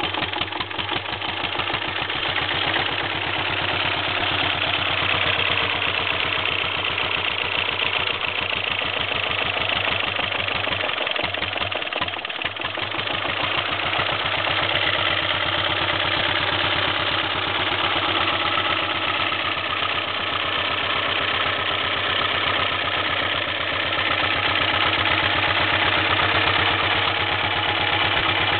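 1929 Ford Model A four-cylinder engine built as an open cutaway, running on its single working number 4 cylinder with a steady, even firing beat. It falters briefly about eleven seconds in, then runs on evenly.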